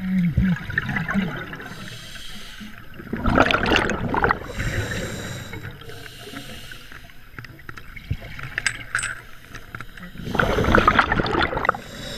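Scuba regulator underwater: two bursts of exhaled bubbles, about three seconds in and again near the end, each lasting a second or so, with a few light clicks between them.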